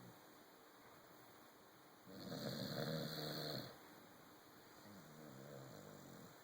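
A Corgi snoring in its sleep: one loud, rasping snore about two seconds in, lasting around a second and a half, then a softer one near the end.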